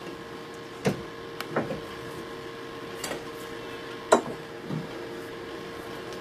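Sharp metal clicks and knocks as a thin steel rod is handled in a small vise and worked with pliers to bend it, about five strikes at uneven intervals, the loudest about four seconds in, over a faint steady hum.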